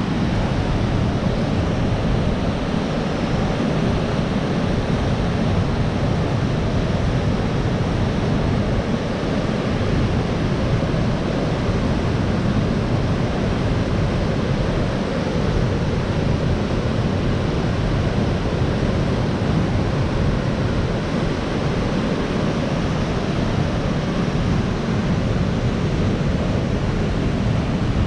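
Waterfall and white-water rapids rushing, a loud, steady, unbroken rush of water.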